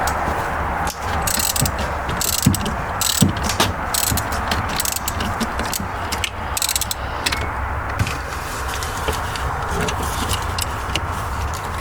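Ratchet wrench clicking in irregular runs while it loosens a car battery terminal to disconnect the battery.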